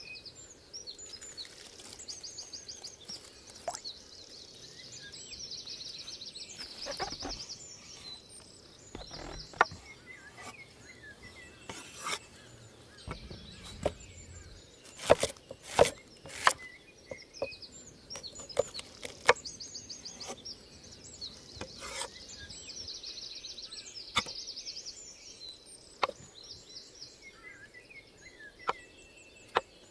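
Irregular sharp knocks and clicks, like wood or utensils being struck while working at a campfire, with a songbird repeating a fast trilling song several times.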